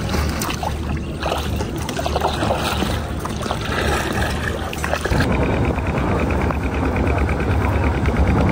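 Water splashing and trickling around a small boat, with scattered splashes. About five seconds in, a louder, steadier low drone takes over.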